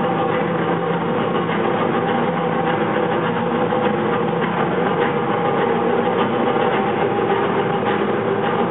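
Recorded dance music for a stage jazz number playing loudly over a hall's sound system: a dense, steady wash with several held notes.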